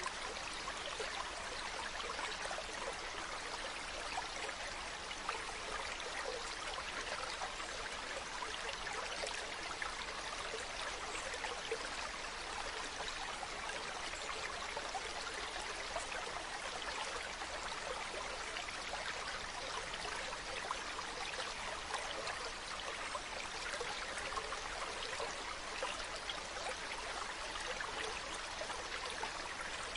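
A mountain stream running steadily over rocks, a continuous rushing with fine splashes and trickles.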